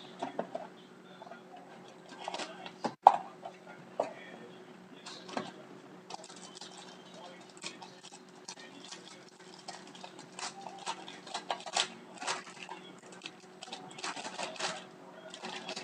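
Hands opening a sealed box of hockey trading cards: irregular crinkling, clicks and light taps of packaging and cards being handled, over a faint steady hum.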